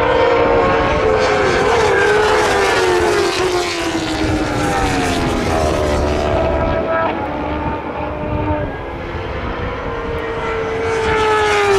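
Racing motorcycles passing at full speed one after another, each engine's high note dropping in pitch as it goes by. Several pass in the first half, the sound eases off for a couple of seconds, and another bike closes in and passes near the end.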